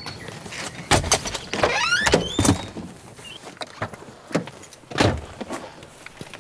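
Car doors opening and thunking shut as people climb into the front seats, with a short rising squeak about two seconds in.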